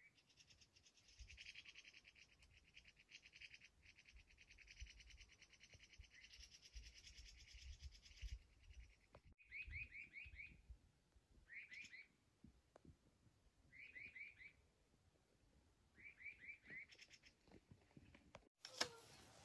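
Birds singing faintly: a long, fast trill for the first several seconds, then short phrases of three or four quick notes repeated every couple of seconds. Near the end a few sharp clicks and knocks come in.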